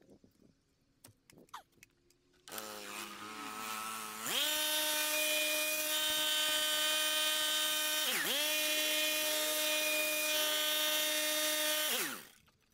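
Stihl MSA 220 battery chainsaw's electric motor whining as it is run. It starts about two and a half seconds in at a lower pitch, rises to a steady high whine, dips sharply once near the middle, then winds down near the end.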